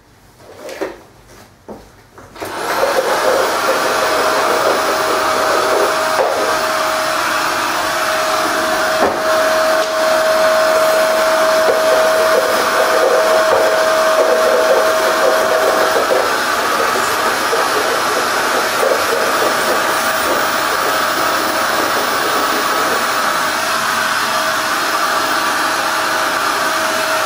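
A few knocks, then a bagless cylinder vacuum cleaner switches on about two and a half seconds in and runs steadily as it sucks up white dust from a wooden floor. A steady whistling tone sits over the motor's noise through the first half and comes back near the end.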